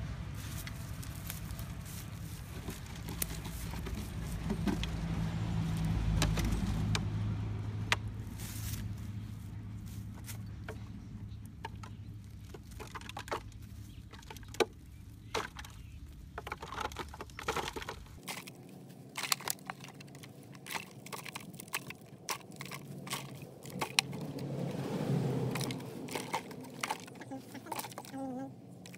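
Crackling and clicking of a cut-open plastic oil bottle being handled and pushed into a hole, with hands scraping and patting loose dry soil around it. A low steady hum underneath cuts off about two-thirds of the way through.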